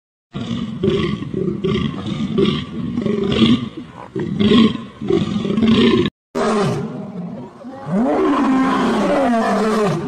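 Loud roaring calls of a large animal: a rhythmic series of pulses, then, after a brief break just past six seconds, longer calls that rise and fall in pitch.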